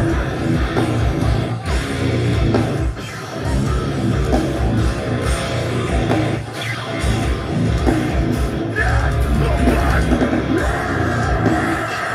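Deathcore band playing live: heavily distorted guitars, bass and rapid kick drums, with a few brief breaks in the riffing.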